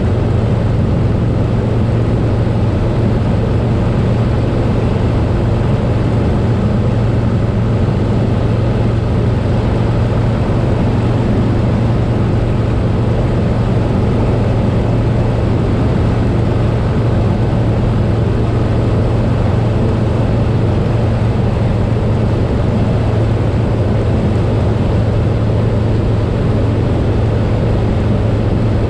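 Harley-Davidson Softail Slim's V-twin engine running at a steady cruising speed, with wind and road noise.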